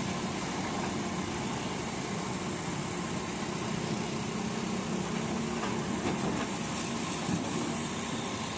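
Diesel engine of a Doosan DX140W wheeled excavator running steadily while it works its boom and bucket.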